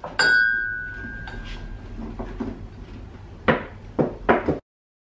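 A ceramic mug knocks and rings briefly, then light handling clicks and a few sharper taps as it is worked over at the counter while a sticker label is peeled off it.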